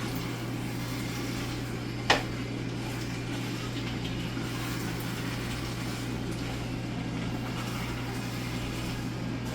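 Steady low hum with a hiss of kitchen background noise, and one sharp click about two seconds in.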